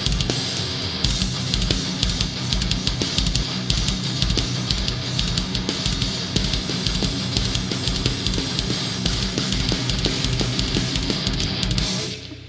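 A groove metal band playing live: distorted electric guitars and a drum kit with fast bass-drum strokes. The music stops abruptly near the end.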